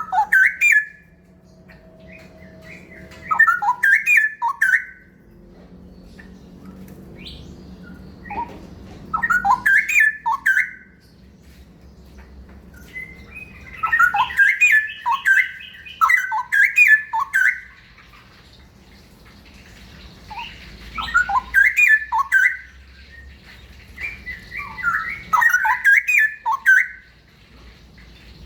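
Straw-headed bulbul (cucak rawa) singing rapid rolling song phrases (ropel), about six loud bursts of quick up-and-down notes with short pauses between them, over a steady low hum.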